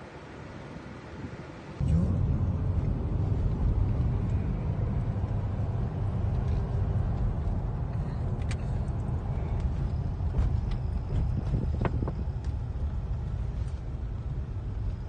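Car cabin road noise while driving: a steady low rumble of engine and tyres that starts abruptly about two seconds in, after a short, quieter outdoor stretch. A few faint clicks come through about halfway.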